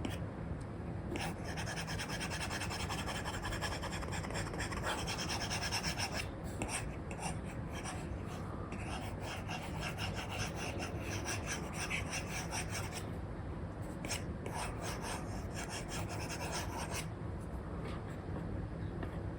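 A stylus nib scratching across a paper-like matte screen film on an iPad in many quick sketching strokes, a dry rubbing rasp with brief lulls between bursts of strokes. A steady low hum runs underneath.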